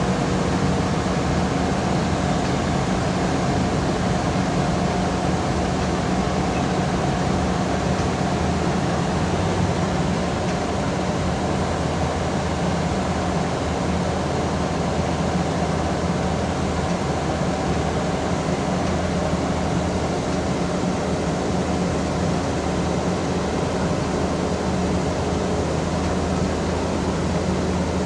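Heavy diesel engine running steadily at a constant speed, a drone with a faint steady whine above it.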